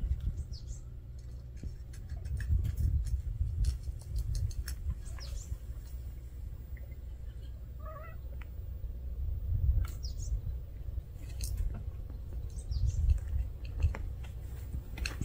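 A cat meows once, briefly, about halfway through, with a few faint high chirps around it over an uneven low rumble on the microphone.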